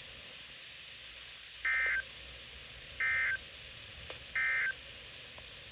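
Emergency Alert System end-of-message signal: three short, identical bursts of SAME digital data tones, a buzzy two-tone warble, about a second and a half apart. It marks the end of the warning broadcast.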